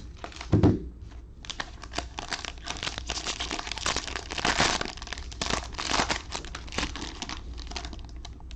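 A dull thump about half a second in, then the wrapper of a trading-card pack torn open and crinkled in gloved hands: a dense crackling rustle lasting several seconds that fades near the end.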